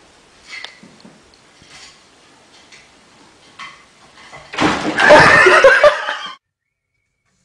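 A knock as a cat jumps from the top of a wooden chair onto a tile floor, then loud human laughter for about two seconds that cuts off suddenly.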